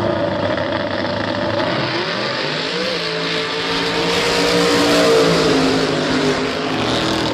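Two drag-race cars' V8 engines launching off the line and accelerating hard down the strip, their pitch climbing about two seconds in and the sound loudest about five seconds in.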